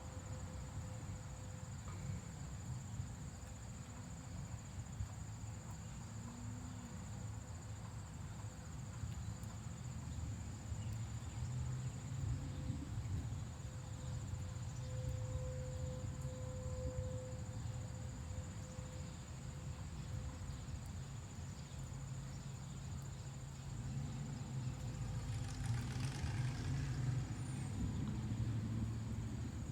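Crickets trilling steadily over a low, fluctuating rumble that swells for a few seconds near the end.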